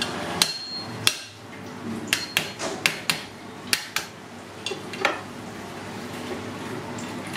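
Cleaver striking a cooked mud crab claw on a wooden chopping block to crack its shell: a run of about a dozen sharp knocks, some in quick succession, over the first five seconds, then they stop.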